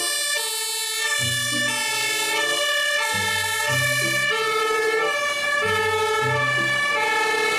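Two-tone fire engine sirens, several sounding at once and overlapping, each stepping back and forth between two pitches about every half second.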